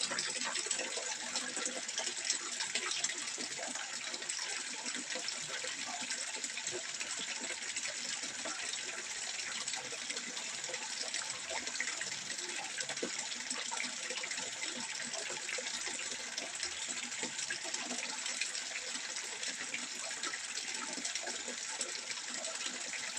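Water trickling and splashing steadily into a fish pond, a continuous bright splashy hiss.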